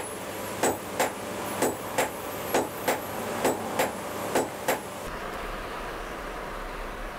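Blacksmith's hammer striking a red-hot blade on an anvil, a sharp ringing clank about twice a second. After about five seconds the strikes stop and a steady low rumble from the coal forge's fire remains.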